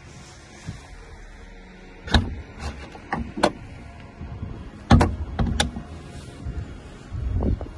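Knocks and clunks from a Porsche 911's front luggage lid being lifted, let down and pushed shut by hand: a few sharp knocks about two to three and a half seconds in, the loudest thump about five seconds in, and one more near the end.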